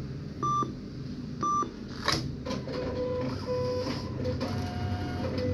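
ATM beeping twice, a second apart, then a clunk and the cash dispenser mechanism whirring, its pitch shifting in steps, as it feeds out banknotes.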